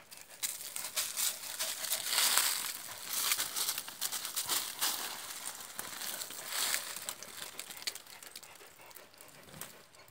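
Dry leaf litter and brush crunching and rustling in irregular bursts, loudest in the first few seconds and fading toward the end.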